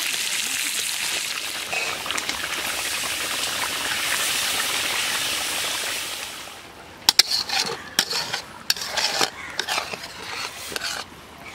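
Food simmering in a kadai with a steady sizzling hiss. About six and a half seconds in the hiss drops away and a spatula knocks and scrapes against the pan in a string of sharp clicks as the pot is stirred.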